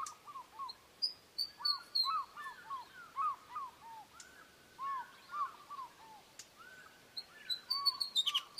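Osprey calling: runs of short whistled notes, several a second, repeated in bursts, with higher, sharper notes near the end.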